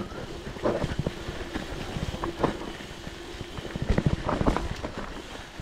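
Mountain bike rattling and knocking over a rough, rooty trail, with irregular clatters from the bike and a steady low rumble.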